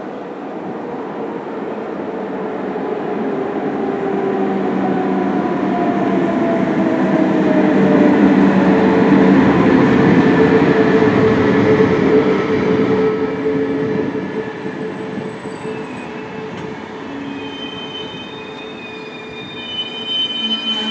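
SBB Re 460 electric locomotive hauling a train of double-deck IC2000 coaches past at speed. The rumble and rail noise grow to a peak as the locomotive passes, with a whine that falls in pitch. The coaches then roll by with steady wheel noise and thin high wheel squeals near the end.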